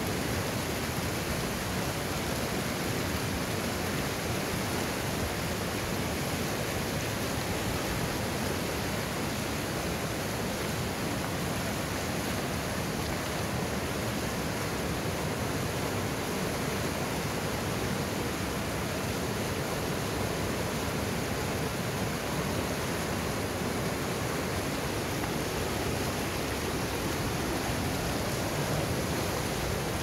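Fast mountain river running over boulders and rapids: a steady rush of white water.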